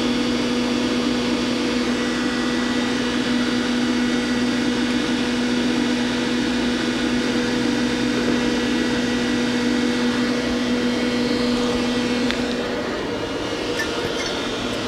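Doosan Puma 400LB CNC lathe spindle running steadily in low range at about 250 RPM, a steady machine hum and whine. About twelve seconds in, the lower tone drops out and the sound gets slightly quieter.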